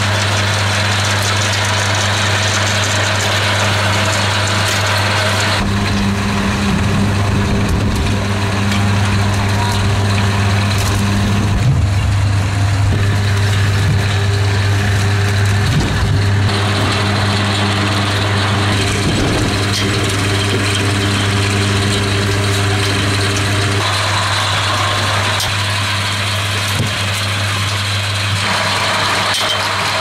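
Electric belt conveyor carrying wood-ear mushroom grow bags, its motor running with a steady low hum. A few knocks come through as the bags are handled.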